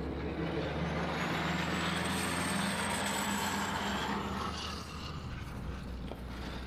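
A vehicle passing by: a whooshing noise that swells and fades over about four seconds, with a faint high whine rising and falling with it, over a steady low engine hum.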